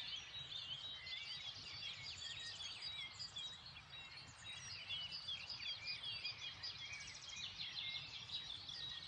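Morning chorus of several songbirds singing at once: a dense, overlapping mix of high chirps and trills, with a faint low rumble underneath.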